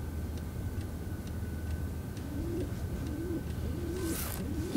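A dove cooing: a run of short, soft, arching low calls repeating from about two seconds in, over faint regular ticking at about three ticks a second.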